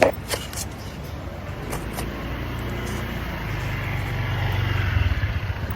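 An engine running with a steady low hum that grows louder toward the end, with a sharp click at the very start.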